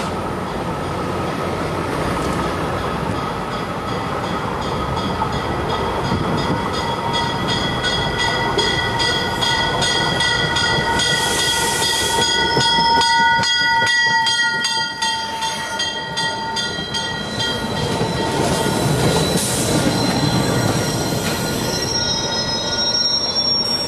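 MBTA commuter rail train arriving and braking to a stop, with several high steady squealing tones from its brakes and wheels over the rumble of the coaches.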